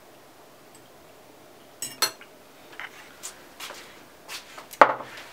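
Dishes and cutlery being handled: a few clinks about two seconds in, scattered lighter clicks, and one sharper knock near the end as a plate is set down.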